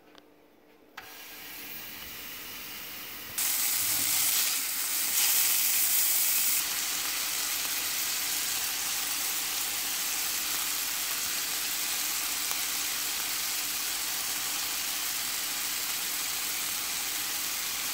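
Ground-beef slider patties sizzling in hot fat in a nonstick frying pan. The sizzle starts about a second in, gets louder a couple of seconds later, then holds steady.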